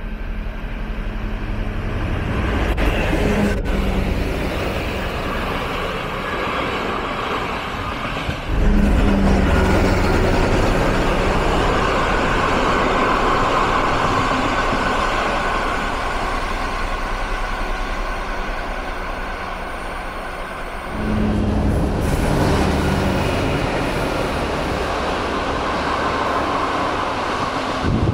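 DR class 119 diesel-hydraulic locomotive running under load as it hauls its passenger train past, with the rumble of the coaches on the rails. The sound steps up suddenly about eight seconds in and again about twenty-one seconds in.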